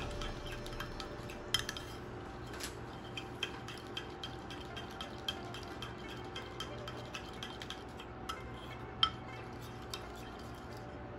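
Metal spoon stirring a thick berbere-and-butter sauce in a ceramic plate, with light scattered clinks and scrapes against the dish and a sharper clink about nine seconds in. A faint steady hum runs underneath.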